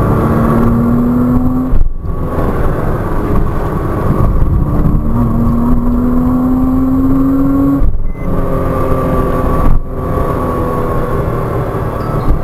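Porsche Cayman 987.2's 2.9-litre flat-six heard from inside the cabin, pulling hard in third gear with its note slowly climbing. The note breaks off twice as the throttle is lifted for braking, over steady tyre and road noise.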